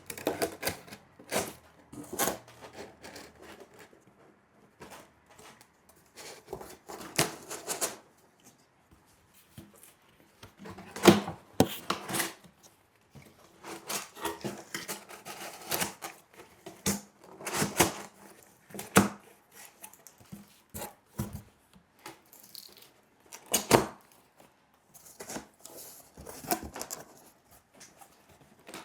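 Cardboard shelf pieces, made from bicycle shipping boxes, being folded by hand and their tabs pushed closed: irregular crinkling, scraping and sharp creasing snaps, a few of them louder.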